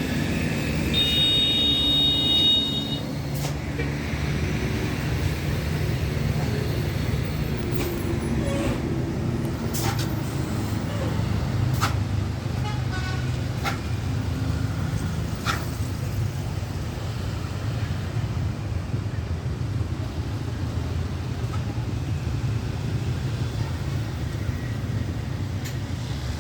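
Buses and other traffic running past on a road, a steady low engine and tyre rumble. About a second in, a bus's high multi-tone telolet horn sounds a chord for about two seconds.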